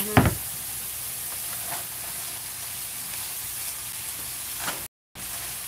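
Kale, broccoli and Brussels sprouts stir-frying in hot oil in a pan, giving a steady sizzle. There is a single knock just after the start, and the sound cuts out for a split second near the end.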